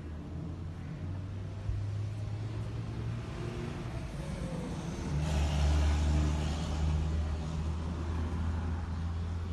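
Yamaha 242 jet boat engine running, revving up about five seconds in and then holding. The engine is misfiring, which the owner traces to a wet spark plug that is shorting out.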